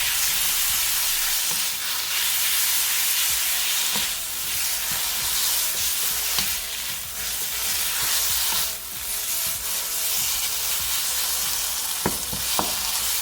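Rice noodles and pad thai sauce sizzling in a hot pan as they are stir-fried, a steady frying hiss with the stirring utensil working through the noodles. Near the end come two sharp knocks of the utensil against the pan.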